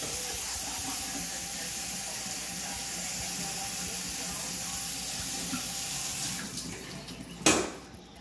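Motion-sensor kitchen faucet running a steady stream into a stainless steel sink and splashing over a bathing cockatoo. The water noise dies down about six and a half seconds in, and a sudden loud burst of noise follows about a second later.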